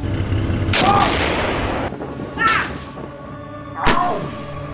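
A tank cannon fires three times, about a second and a half apart. Each shot is followed by a short pained cry from the tank, its biofused crewman reacting to the recoil.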